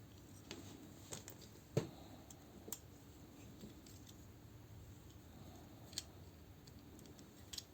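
Faint, scattered clicks and taps of hard plastic action-figure parts being handled and fitted together, the loudest a sharp click about two seconds in.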